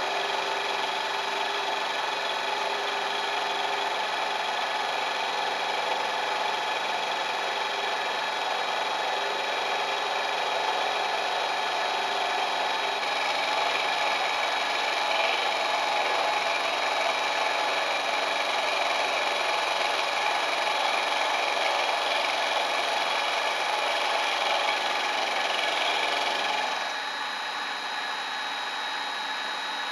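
Kent Bridgeport-clone vertical milling machine cutting aluminium: the end mill side-milling the edge of a block, with the 2 HP spindle motor on a variable frequency drive running steadily under the cutting noise. The sound grows a little louder about halfway through and falls off near the end.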